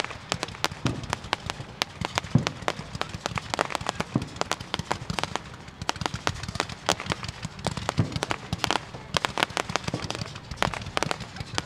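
Fireworks going off in rapid succession: a dense, irregular barrage of sharp cracks and pops, several each second.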